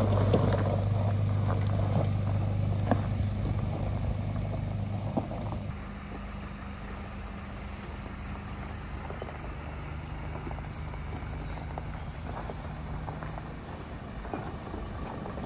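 A four-wheel-drive vehicle's engine running steadily, with a few short knocks in the first five seconds; about six seconds in the engine sound drops to a quieter steady hum.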